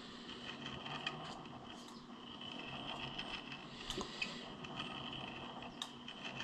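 Faint scraping and a few light clicks of hands working at a metal lathe, with the chuck turned by hand against a test indicator to check the face runout.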